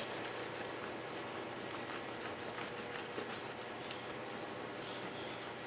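Faint, steady rubbing of a cloth over a stained glass panel's glass and soldered seams, working black patina onto the solder.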